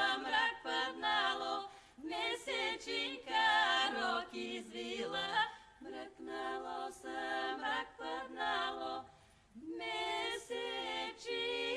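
Background music: unaccompanied voices singing a cappella in harmony, with two brief pauses between phrases.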